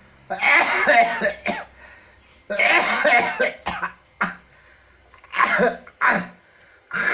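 A person coughing in repeated harsh fits, with short pauses between them for breath; the cough is the hacking chest cough that the treatment is meant to clear.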